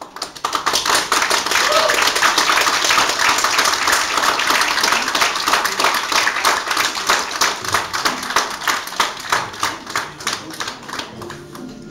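Audience applauding: the clapping starts suddenly, holds steady, then thins to scattered separate claps and dies away near the end.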